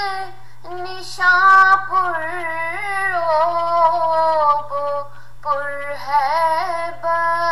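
A high female voice singing an Urdu nazm, drawing out long, wavering notes with a short pause for breath about a second in and again near five seconds. A steady low hum runs underneath.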